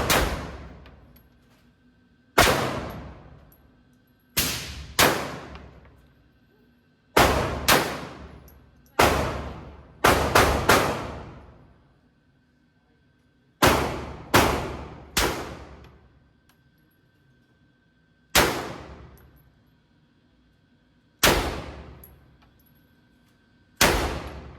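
Glock 25 pistol in .380 ACP fired in slow single shots, about fifteen in all at an uneven pace, sometimes two or three in quick succession, each shot followed by a long fading echo.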